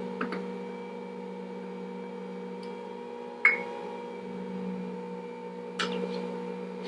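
Electric stand mixer running with a steady hum as flour is added to the batter. A metal measuring cup clinks sharply against the stainless-steel mixer bowl about three and a half seconds in, with lighter knocks from scooping flour near the start and just before the end.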